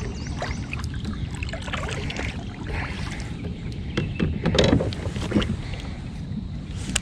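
Kayak sounds on the water: a steady low wind rumble on the microphone with scattered small clicks and knocks, and a louder thump about four and a half seconds in.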